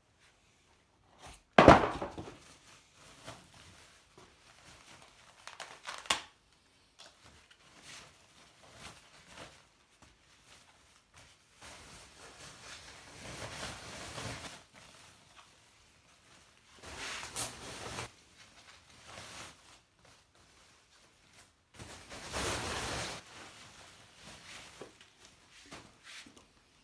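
Packaging being handled and unwrapped: crinkling and tearing of wrapping in several rustling stretches, with a loud knock about two seconds in and a few clicks.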